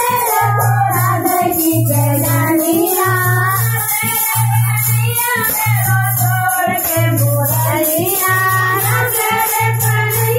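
Hindu devotional kirtan music: bhajan singing over a low beat that pulses about once a second, with fast, jingling, shaker-like percussion.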